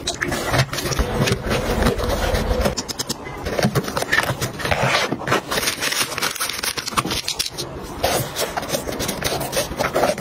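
Hands packing a zippered fabric cosmetic bag: the bag's lining scrapes and rustles as toner bottles, packaged eye masks and makeup brushes are pushed into its pockets and elastic loops, with many small taps and clicks of plastic and brush handles.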